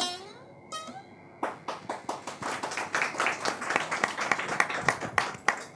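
A small studio audience applauding with scattered hand claps that start about a second and a half in and stop near the end, just after the last sung note of a song with saz accompaniment fades away.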